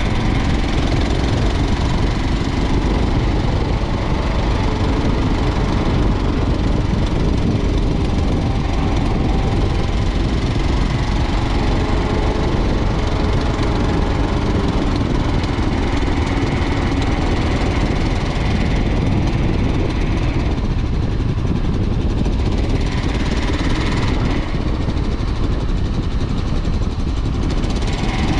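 Kawasaki KLR 650's single-cylinder four-stroke engine running as the bike is ridden, under a steady, heavy rush of wind and road noise.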